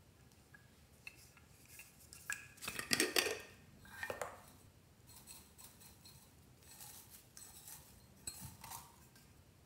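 Hard objects clinking and knocking with short ringing tones, loudest in a cluster about three seconds in, as a yellow container is handled over a glass dish. Lighter clicks and scrapes follow as its metal-rimmed top is twisted.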